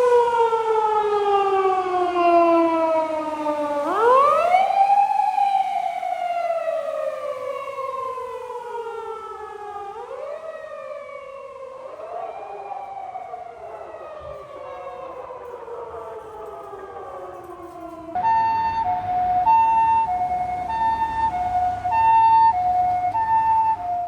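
Emergency-vehicle sirens wailing, each cycle rising quickly and then falling slowly over several seconds, with two sirens overlapping for a moment. About 18 seconds in, a two-tone hi-lo siren takes over, alternating between a higher and a lower tone about once a second: the pattern used by Japanese fire-department ambulances.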